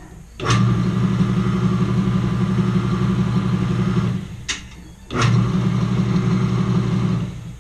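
The 1 hp, 110 V electric motor of a homemade 2x72 belt grinder on its first test run, switched on and running with a steady hum. It is switched off a little after four seconds and comes back on about a second later. There are short clicks around each stop and start.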